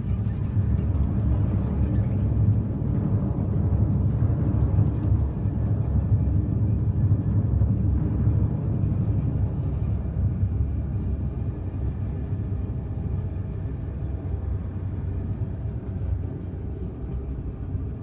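Contemporary chamber ensemble holding a dense, low rumbling noise with no clear notes, strongest in the first half and easing slightly towards the end.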